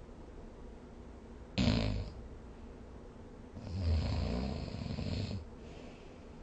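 A sleeping person snoring: a short snore that starts abruptly about one and a half seconds in, then a longer snore of nearly two seconds that swells and fades.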